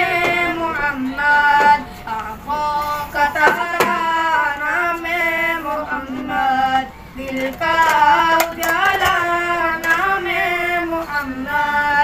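A naat, an Islamic devotional song, sung by a lone voice in a flowing melody with long, ornamented held notes over a steady low drone.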